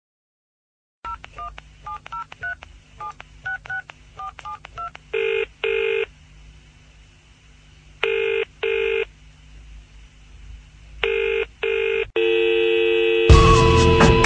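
Telephone keypad tones dialling a number, a quick run of about a dozen short two-note beeps, then a double-ring ringing tone heard three times. A steady tone follows, and music with a beat starts just before the end.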